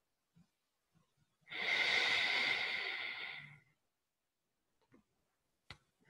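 A person's long breath out, a loud hiss lasting about two seconds that starts about a second and a half in. A sharp click follows near the end.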